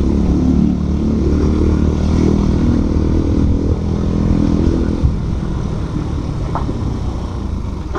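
Bajaj Pulsar NS125's single-cylinder engine running through an aftermarket SC exhaust while the bike is ridden along, its note rising and falling slightly and easing off over the last few seconds.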